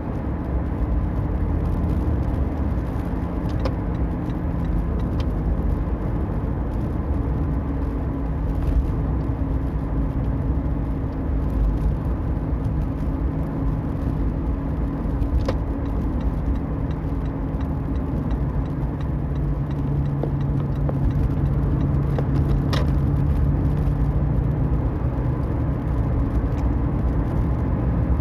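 Toyota Prius driving: steady tyre and road rumble with a low droning hum, the abnormal wheel-hub noise the owner is recording. The hum drops in pitch and grows stronger about two-thirds of the way through.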